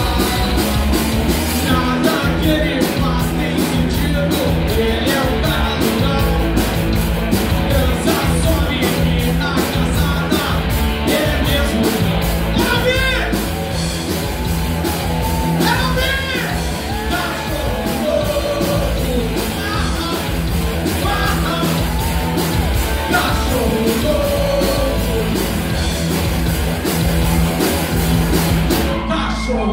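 Live rock band playing: distorted electric guitars, bass, and drums with a fast, even cymbal beat, with a voice singing and shouting over them. The cymbals drop out just before the end.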